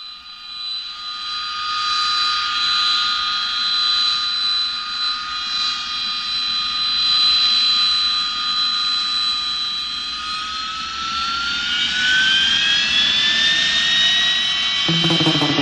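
Jet engine whine: a steady high whistle over a hiss that fades in, then rises in pitch about ten seconds in. Near the end a second sound with falling lower tones comes in.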